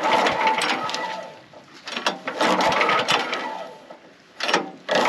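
Portable sawmill's small gasoline engine being cranked on choke, three tries, catching and starting to run at the very end.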